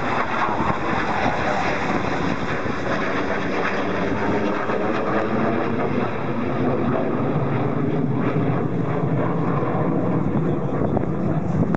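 Jet noise from a pair of F-16 fighters passing overhead, their single turbofan engines giving a loud, steady roar.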